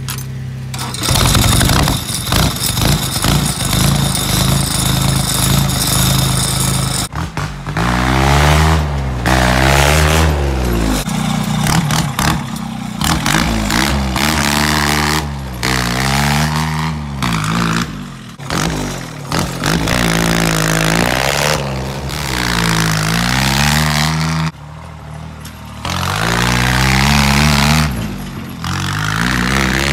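Kubota D950 three-cylinder diesel engine in a Cushman golf cart, cold-started after glow-plug heating with a jump from jumper cables, its injection pump turned up for extra fuel. About a second in a steady clattering run with a high whine begins; from about seven seconds the engine is revved up and down over and over as the cart drives off.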